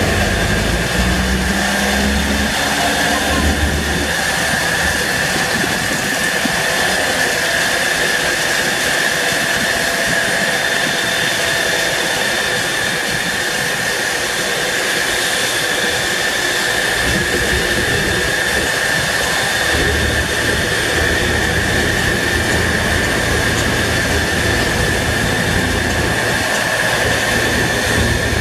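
Steady whine of a jet turbine: a constant high tone over a broad rushing noise, with no change in pitch. A low engine rumble is heard at the start and comes back about two-thirds of the way through.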